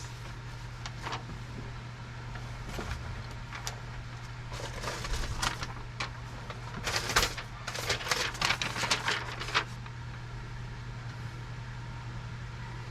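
Scattered clicks and clinks of tools and parts being handled, busiest between about seven and nine and a half seconds in, over a steady low hum.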